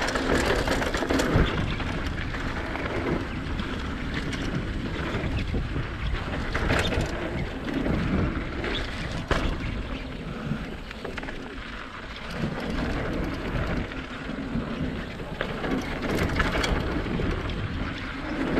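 Mountain bike descending a flow trail: tyres rolling and the bike rattling, with wind rushing over the microphone. A few sharp knocks from bumps, the loudest about a second in.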